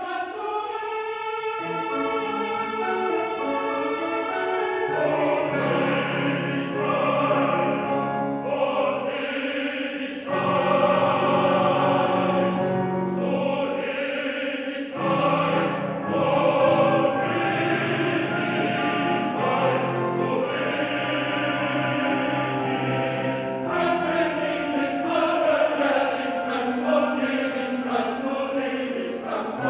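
Small male chorus of about ten voices singing with piano accompaniment, in held chords that swell louder twice in the middle of the passage.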